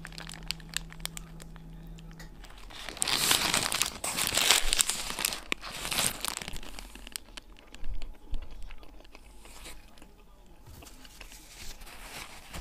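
Close-up eating sounds: chewing a shawarma, with the paper wrapper crinkling in several loud rustles from about three to six seconds in and once more near eight seconds.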